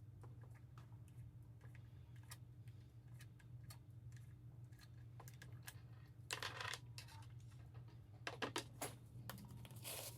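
Faint clicks, taps and a brief scrape of hand tools and small metal parts being handled, over a low steady hum. There is a short rustling burst about six seconds in and a quick run of clicks a couple of seconds later.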